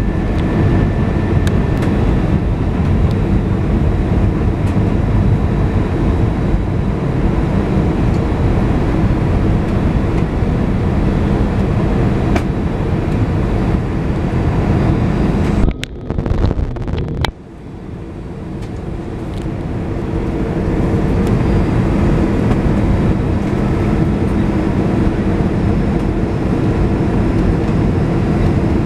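Steady roar of jet engines and rushing air inside an Airbus A320's cabin during the descent to land. About sixteen seconds in the noise cuts out briefly, then builds back up over a few seconds.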